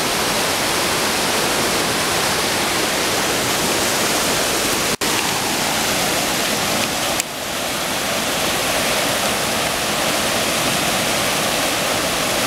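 Mountain creek rushing over a small cascade of rocks: a steady, loud rush of falling water, with a brief break about five seconds in.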